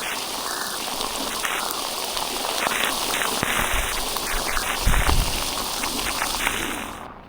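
Heavy storm rain pouring down in a dense, steady hiss with scattered drop ticks, and a brief low rumble about five seconds in. The rain sound falls away just before the end.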